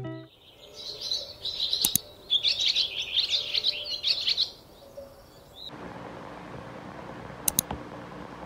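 Birds chirping in quick high notes for about four seconds, with a sharp click partway through. Then quiet room tone with a faint hum, and a brief double click near the end.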